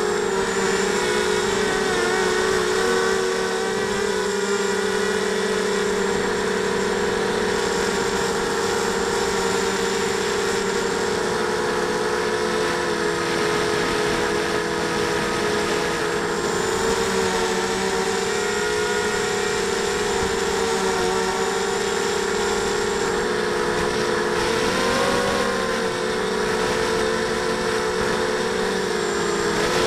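Small FPV racing quadcopter's brushless motors and propellers heard from the onboard camera: a steady whine that wavers in pitch with the throttle, most clearly about 25 seconds in.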